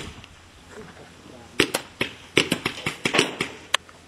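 Paintball markers firing: sharp pops in quick irregular volleys, about a dozen after a lull of a second or so, with a single pop at the very start.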